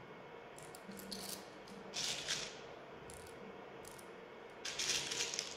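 Plastic 0.28 g airsoft BBs being pressed by hand into a gas blowback pistol magazine: faint small clicks and rattles in a few short bursts.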